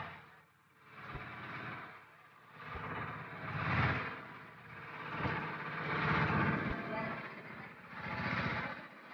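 Motorboat engine running, with wind gusting on the microphone so the noise swells and fades every second or two, and a few brief low knocks.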